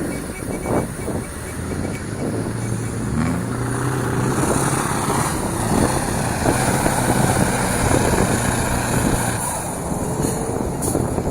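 Scania V8 diesel truck engine pulling as the truck drives off-road, heard from its open cargo bed with wind and rough rattling on the microphone. The engine note steps up about three seconds in and drops away near the end.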